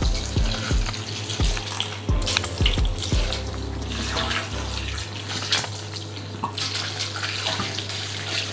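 Red wine pouring from a glass bottle into a large stainless steel stockpot full of lamb, onions and herbs, with irregular low pulses from the bottle during the first three seconds.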